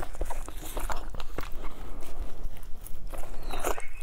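Close-miked wet biting and chewing on a large blood sausage, with many short sharp clicks.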